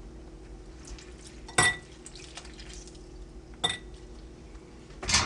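Lemons being juiced with a hand reamer over a sieve: three sharp clinks, two with a short ring, from the reamer and sieve knocking together, with faint juice dripping between them.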